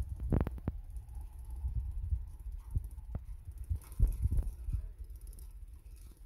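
Handling noise on a handheld phone's microphone: a low rumble with irregular thumps and a few sharp clicks, loudest about four seconds in.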